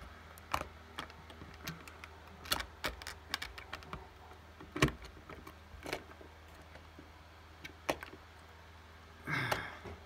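Scattered small clicks and taps of an OO gauge model steam locomotive being handled and set down on model railway track, with one sharper knock about five seconds in and a brief rustle near the end, over a steady low hum.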